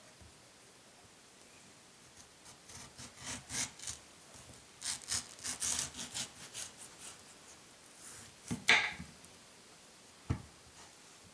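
Serrated kitchen knife sawing through a mango's skin and flesh on a wooden cutting board: a run of short rasping strokes starting about two seconds in, with a louder stroke near nine seconds. A single sharp knock follows about a second later.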